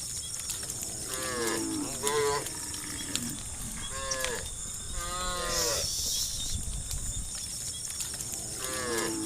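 Cattle in a herd mooing: a string of calls, each sliding down in pitch, coming about a second in, around four and five seconds, and again near the end.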